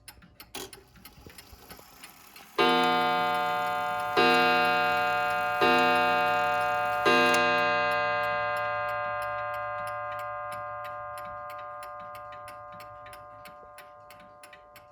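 British time-and-strike mantel clock striking the hour on its deep-toned gong: four strokes about a second and a half apart, each ringing on and slowly fading, with the movement ticking steadily underneath.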